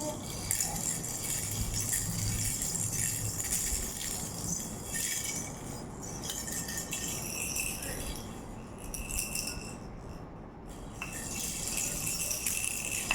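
A rattle shaken in runs, a dense shaky hiss that pauses briefly twice.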